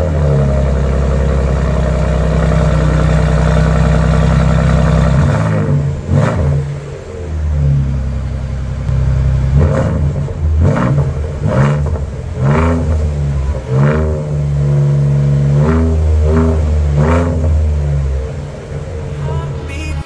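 Next-Gen Ford Ranger Raptor engine running through its upgraded exhaust. It holds a steady note for about five seconds, then is blipped about ten times, each short rev climbing and dropping back.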